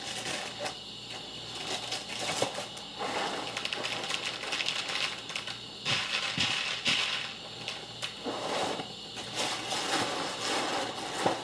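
Dry, crunchy cereal rattling and clicking in a bowl as a spoon stirs two cereals together, a steady run of small irregular clicks with a few louder knocks.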